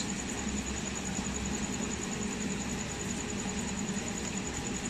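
A steady machine hum with a thin, constant high whine over it.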